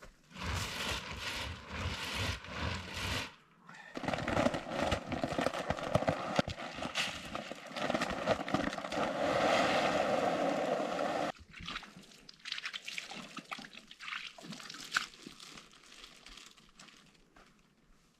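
A container of bear bait shaken hard for about three seconds, then its contents poured out in a steady stream for about seven seconds that stops abruptly, followed by quieter rustling and handling.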